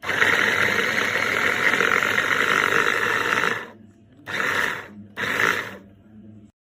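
Electric capsule cutter chopper's motor and spinning blades running in pulses: one run of about three and a half seconds, then two short bursts about a second apart.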